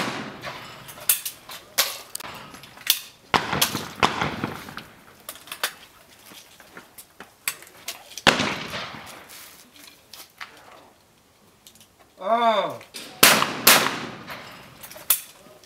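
Shotgun shots in double trap, mostly in pairs about half a second apart, with lighter cracks between them. Near the end a shouted call for the targets is followed by two quick shots.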